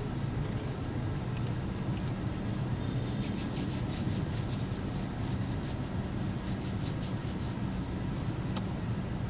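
Steady low rumble of idling traffic, heard from inside a stopped car. For a few seconds in the middle there is a rapid, light, high ticking, and a single sharp click comes near the end.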